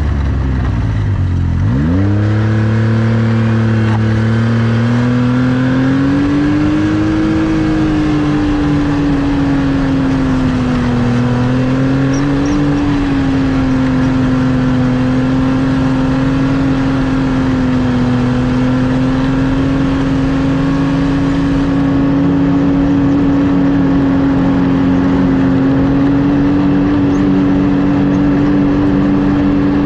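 Snowmobile engine easing off just after the start, then revving back up within a couple of seconds. It then runs steadily at trail speed, its pitch wavering slightly.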